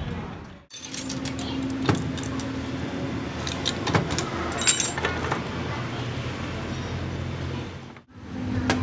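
Light metallic clinks and taps over a steady low hum, with brief breaks about a second in and near the end.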